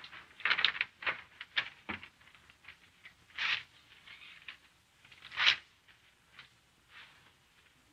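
Paper rustling in a series of short bursts as a large sheet is handled, the loudest about three and a half and five and a half seconds in.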